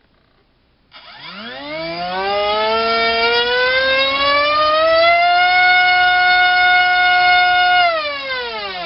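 Multistar Viking 2208 2600 kV brushless drone-racing motor spinning a 6x4 propeller on a 3-cell battery during a thrust test. It starts about a second in, its whine rising in pitch as the throttle is opened, holds steady at full throttle for a few seconds, then winds down and stops near the end.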